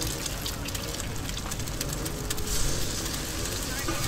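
Eggs frying in oil on a wide flat griddle pan: a steady sizzle, with a metal spatula scraping and clicking against the pan. The sizzle grows louder for a moment about two and a half seconds in.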